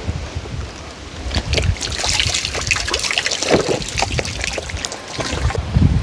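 Water trickling and splashing, with gusts of wind on the microphone near the start and the end.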